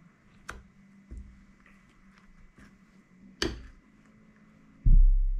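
Metal fork clicking against a ceramic bowl a few times while zucchini slices are turned in thick batter, with one sharper click about three and a half seconds in. Near the end a loud dull thump that dies away slowly.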